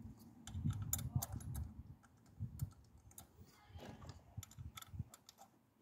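Irregular clicks and light knocks of a hand tool and parts being handled in a car's engine bay, busiest in the first two seconds, then scattered.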